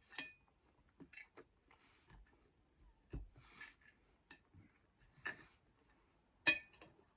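Metal knife and fork clinking and scraping against a ceramic dinner plate in short, separate clicks, with soft chewing sounds between. The sharpest clink comes near the end.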